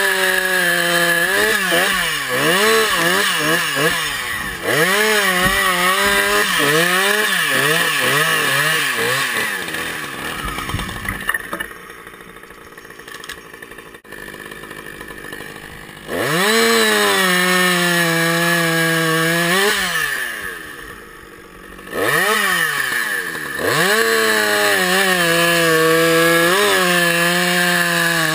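Two-stroke chainsaw cutting logs: the engine revs up again and again, its pitch sagging as the chain bites into the wood, and it twice drops back to a quieter idle for a few seconds, around the middle and about two-thirds of the way through.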